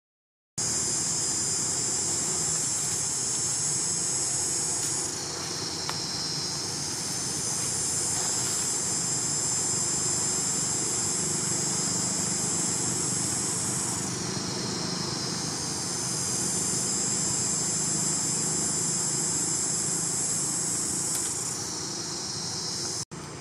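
Dense, high-pitched insect chorus: a steady buzzing hiss that cuts in abruptly about half a second in and dips lower in pitch briefly three times.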